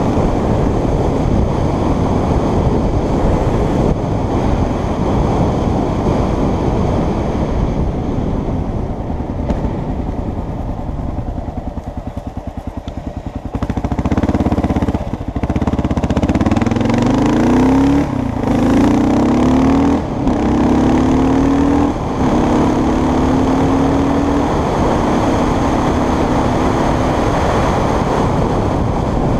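Motorcycle riding at speed with heavy wind noise on the microphone. About halfway through the engine eases off, then pulls up through the gears, its note rising in steps with brief breaks at each shift.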